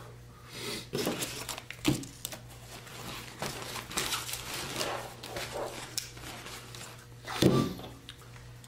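Hands rummaging in a backpack and handling packaged kit items: rustling and crinkling with a few knocks as things are set on a table, the loudest knock about seven and a half seconds in.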